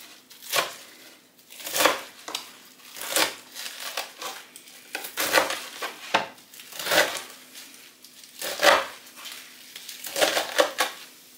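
Kitchen knife chopping a bunch of fresh spinach leaves and stems on a wooden cutting board: crisp knocks of the blade through the leaves onto the board, slow and uneven, about one a second with some quick doubles.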